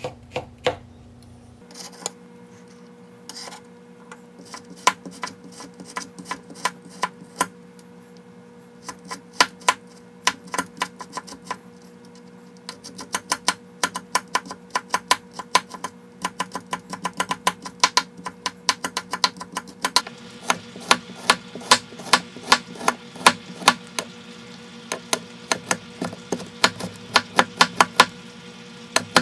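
Chinese cleaver chopping broccoli, then carrots, on a wooden cutting board: sharp knife strikes on the board, sparse at first, then coming in quick runs that grow faster and more continuous in the second half.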